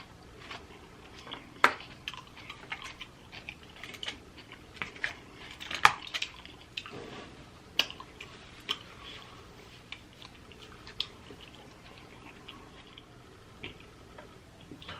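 Close-miked eating sounds: scattered soft clicks and smacks of chewing, with a few sharper taps, thinning out in the last few seconds.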